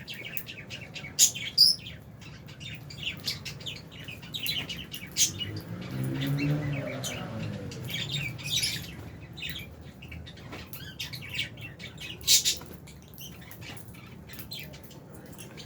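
A flock of lovebirds (Fisher's and albino) chirping in quick, sharp, overlapping calls, with a few louder chirps near the start and about twelve seconds in. A brief low hum rises and falls about six seconds in.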